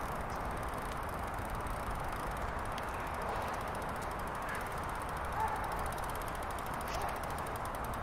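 Outdoor park ambience: a steady hiss of distant background noise, with a couple of brief faint sounds and a faint, fast, high ticking from about three seconds in.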